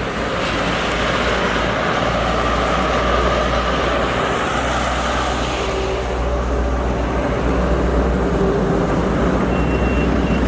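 Steady road noise inside a moving vehicle: a low engine and tyre rumble with a constant hiss.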